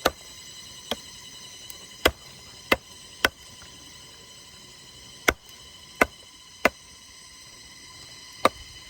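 A knife or cleaver chopping chicken meat on a board: about nine sharp, separate chops at uneven intervals. A steady insect drone runs behind.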